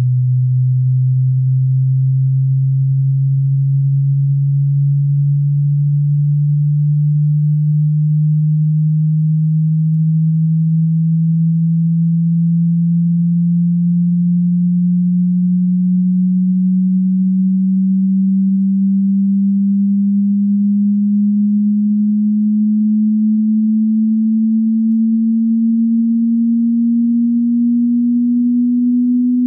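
Hearing-test tone: a single low pure sine tone at a steady level, gliding slowly and evenly upward in pitch, a frequency sweep that rises by about an octave.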